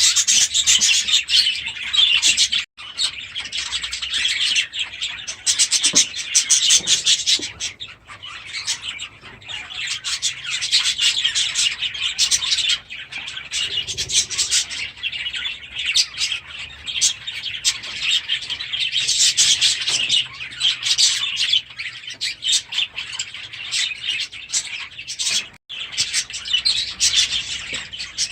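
A flock of budgerigars chattering and warbling together in a steady, dense twitter, which cuts out briefly twice.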